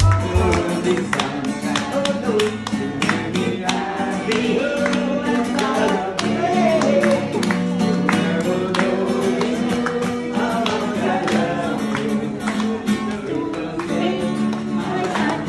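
Music: a voice singing a melody over strummed guitar.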